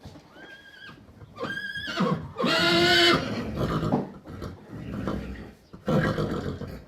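Horse whinnying in several pitched calls, the loudest and longest about two and a half seconds in, with another strong call near the end.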